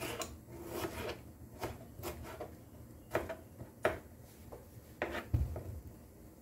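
Small kitchen knife slicing tomato on a white plastic cutting board, the blade knocking the board in irregular strokes.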